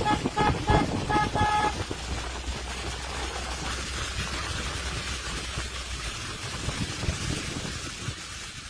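A car horn sounds in a quick series of short honks, which stop about a second and a half in. After that the car's steady running rumble is heard from inside the cabin, easing off near the end.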